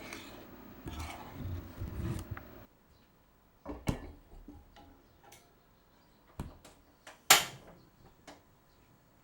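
Kitchenware being handled: a few sharp separate clinks and knocks, like utensils against cups or bowls, the loudest about seven seconds in. Before them, a stretch of rumbling noise cuts off abruptly near three seconds in.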